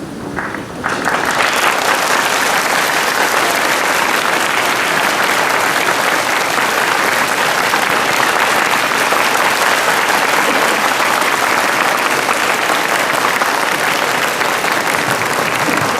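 Audience applauding, many hands clapping steadily after the last choir note dies away about a second in.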